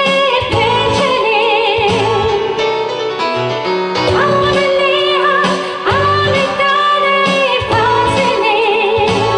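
Female voice singing long held notes with wide vibrato over keyboard accompaniment in a live band performance.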